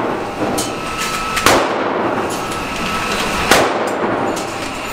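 Two gunshots in an indoor shooting range, about two seconds apart, each sharp and echoing briefly off the range walls.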